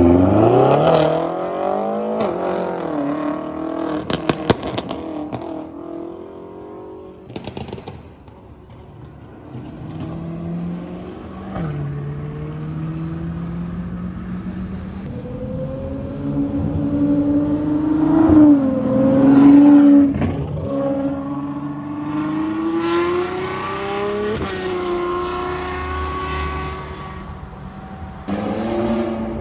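Supercar engines at high revs, one car after another accelerating and passing, the pitch rising and falling with each. A burst of exhaust crackles and pops comes about four to five seconds in, and another a couple of seconds later.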